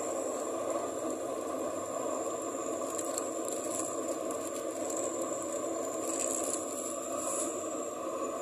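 Metal ladle stirring and scraping in an aluminium rice-cooker pot of curry with pork cracklings, a few scratchy scrapes about three and six seconds in, over a steady hiss; liquid is poured in at the start.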